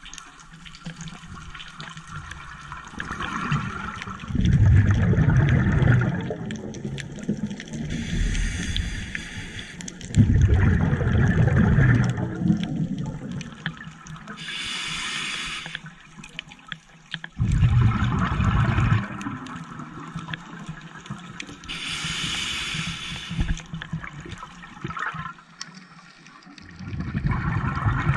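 A scuba diver breathing underwater through a regulator: a short hiss on each inhale, then a burst of exhaust bubbles on each exhale, about four breaths in turn.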